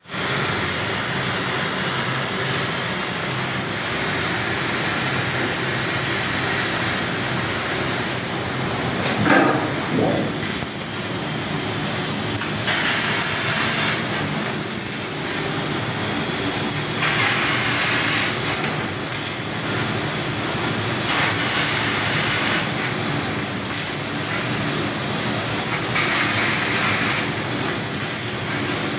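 6 kW laser cutting machine cutting, a steady loud hiss with louder hissing stretches every few seconds, and a brief sweeping sound about nine seconds in.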